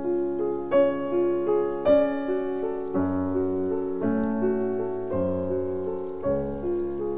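Background piano music: single notes and broken chords played in a flowing, repeating pattern.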